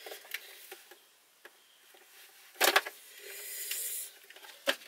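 Knocks and clicks from a plastic portable fan heater being handled and moved about, with one loud knock a little past halfway, a second of hiss just after it, and another sharp knock near the end.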